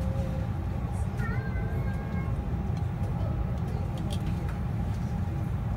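Steady low rumble of a tour bus's engine and tyres on the road, heard from inside the cabin as it drives along.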